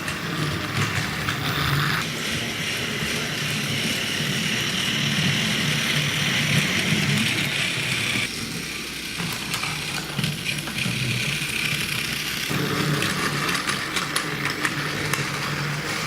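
Battery-powered Plarail toy train running along its plastic track: a steady whir of the small motor and gears, its tone shifting a few times as it goes.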